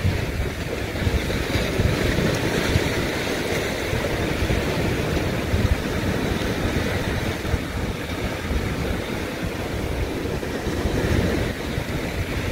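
Wind buffeting the microphone: a steady, fluctuating low rumble with a hiss over it.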